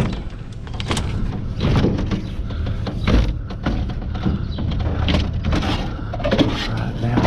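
Scrap being handled and loaded: a run of irregular knocks and clanks over a steady low engine hum.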